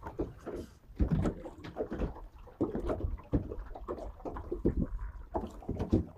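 Water slapping and knocking irregularly against the hull of a small fishing boat at sea.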